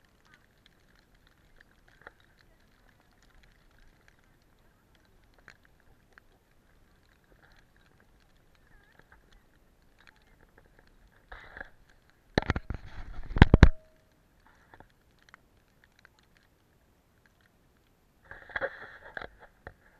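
Footsteps crunching in fresh snow, faint and irregular, with a short loud clatter of knocks and rustling near the middle, lasting about a second and a half.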